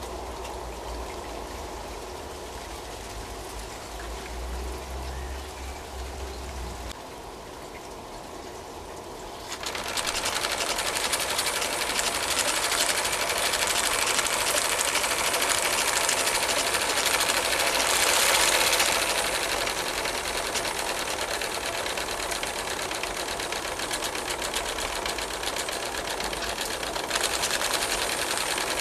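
Live-steam model Willamette steam donkey running fast, with a rapid mechanical beat and steam hiss. It starts up about a third of the way in, after a quieter stretch with a low rumble, and hisses more strongly for a moment around the middle.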